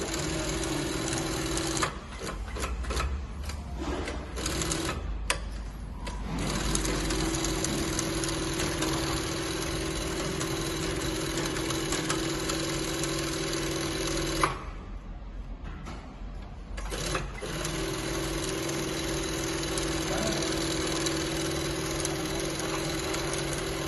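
Vinlex VX-335 B single-needle, double-presser-foot cylinder-bed sewing machine stitching a bag strap, running at a steady hum. It sews briefly, stops for about four seconds with scattered clicks as the work is handled, sews for about eight seconds, stops again for about three, then sews on.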